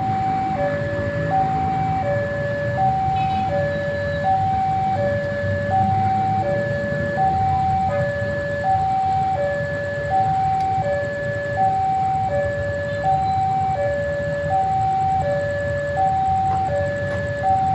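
Railway level-crossing alarm sounding its electronic two-tone warning: a higher and a lower note take turns, each held about half a second, in an even, unchanging cycle, over a low rumble.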